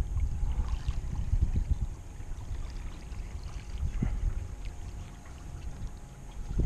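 Wind rumbling on the microphone over water lapping, with a few short splashes from a hooked crappie at the surface. A faint steady whine runs underneath.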